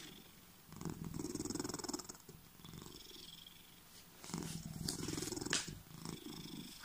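Domestic cat purring close to the microphone, in waves that swell and fade, a louder stretch about every two seconds.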